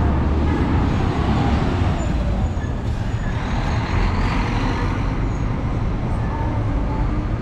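City street traffic: car, minibus and heavy truck engines running and passing close, with a swell of rushing noise about four seconds in.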